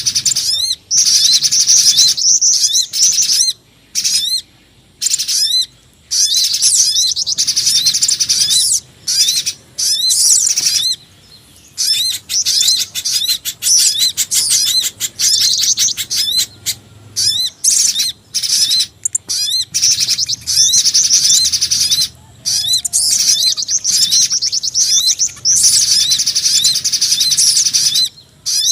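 Bird-lure recording of spiderhunter and jingjing batu calls: rapid, high-pitched chirps and trills in dense phrases that start and stop abruptly, with brief silent gaps between them, played to attract small birds.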